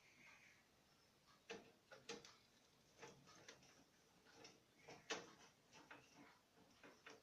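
Faint, irregular clicks and light metallic scrapes of a screwdriver driving the mounting screws that hold a 3.5-inch hard drive in a desktop case, a few sharper clicks standing out among them.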